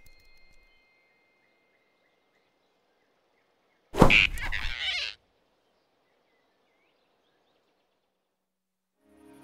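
Animated-film sound effect of a sudden grab, one loud burst about four seconds in that lasts about a second, as a big cartoon rabbit snatches a flying squirrel off a branch. Near silence before and after it.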